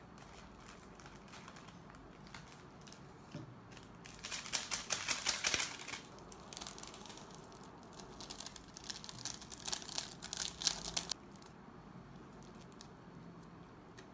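Plastic instant-noodle seasoning sachets crinkling and tearing as they are opened and handled. The rapid crackling comes in two bursts, about four seconds in and again a few seconds later.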